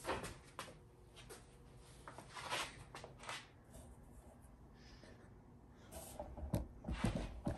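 Faint handling noises from a borescope's flexible probe being fed into a two-stroke cylinder through the spark plug hole: scattered light scrapes and rustles, with a couple of soft knocks near the end.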